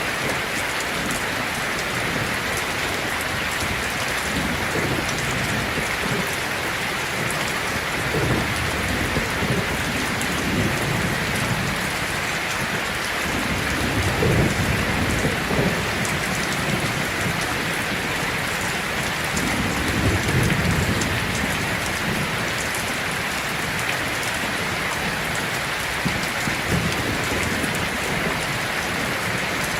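Heavy rain on a tin roof, a steady dense hiss, with low thunder rumbling in several rolls. The rolls are loudest about halfway and about two thirds of the way through.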